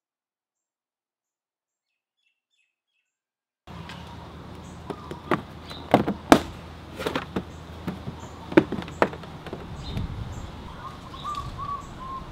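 Silence for the first few seconds, then a Yamaha Vino 125 scooter's rubber floor mat being pulled up off its plastic floorboard: a run of sharp knocks and clicks with rubbing between them. Birds chirp in the background.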